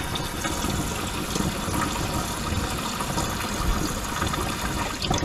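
Water running and splashing steadily into a reef aquarium's sump, bubbling where the drain flow hits the surface.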